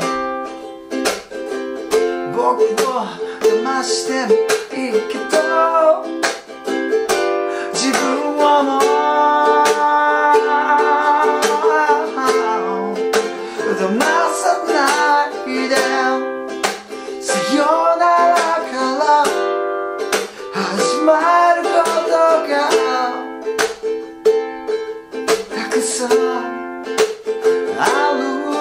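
A ukulele is strummed in a bouncy, funky shuffle with sharp 16th-note chop strums, playing the chords F, C, D7, G7 and Am. A man sings a slow ballad in Japanese over it.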